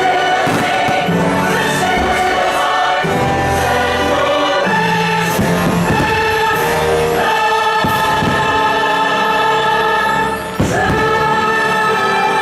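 Fireworks show soundtrack: a choir singing long held chords over an orchestra, the chords changing every second or two.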